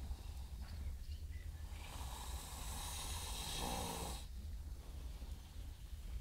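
Sleeping horse snoring: one long, noisy snore starting about two seconds in and lasting a couple of seconds, turning into a low buzz near its end, over a steady low rumble.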